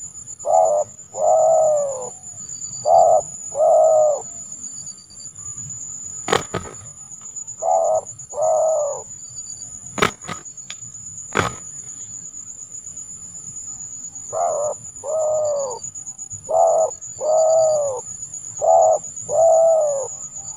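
Spotted dove (tekukur) cooing in repeated short phrases of two to three notes, with long pauses between the phrases. A steady high-pitched whine runs behind it, and a few sharp clicks fall in the quiet middle stretch.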